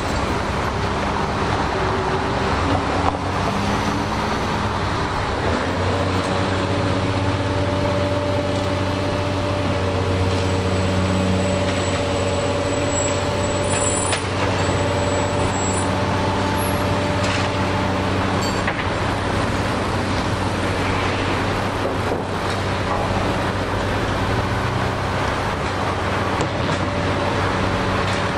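Heavy diesel equipment running steadily, with a deep engine hum and a few steady higher tones over it. The engine note changes about six seconds in and then holds steady.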